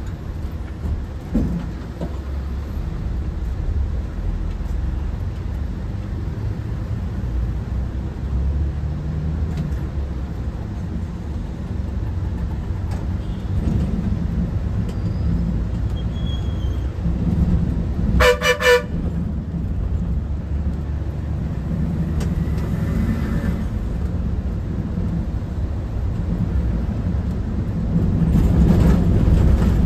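Steady low rumble of a moving bus's engine and road noise, with a short, pulsing vehicle horn honk a little past halfway and the road noise growing louder near the end.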